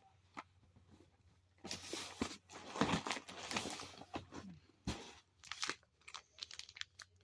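Plastic packaging crinkling and tearing in irregular bursts as an item is unwrapped, starting after a short quiet stretch with a single click.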